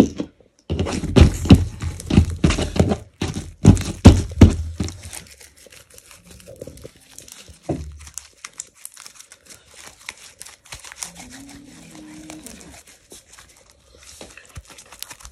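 Hands kneading and stretching sticky slime to mix in green food colouring: wet squishing and crackling clicks, loudest in the first few seconds, then softer and more scattered.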